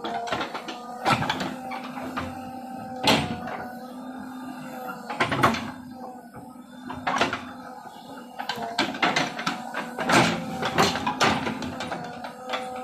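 JCB 3DX backhoe loader at work: its diesel engine runs with a steady hum while the backhoe bucket digs into soil, giving irregular clanks and knocks.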